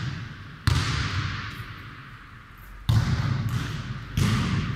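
Football being kicked and bouncing on a hard floor in a futnet rally: three sharp thuds, about a second in, near three seconds and just after four seconds. Each one rings on in the echoing sports hall.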